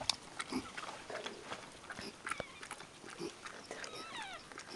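A whelping dog snuffling and licking with many short wet clicks and soft snorts. About four seconds in comes a brief high, falling squeaky whine.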